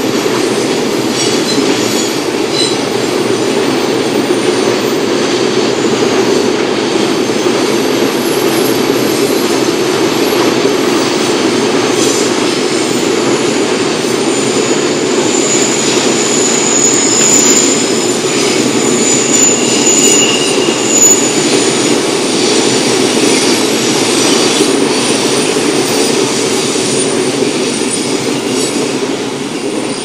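Freight train of container wagons rolling past, a steady noise of wheels on rail. Short high-pitched wheel squeals come a little past halfway, and the sound falls away at the end as the last wagons clear.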